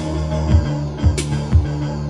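Ensoniq TS-12 synthesizer playing 808 drum-kit sounds from the keys: deep kick thumps and one sharp, bright hit about a second in, over steady held synth notes.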